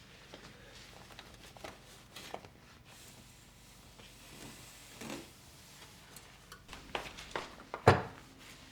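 Light clicks and taps of household objects being handled, ending in a cluster of sharper knocks with one louder knock near the end.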